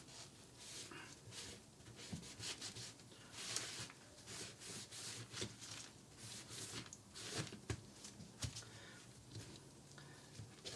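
Sponge soaked in rust remover rubbed along the steel rails of American Flyer toy train track: faint, repeated scrubbing strokes, wiping surface rust off the rail tops.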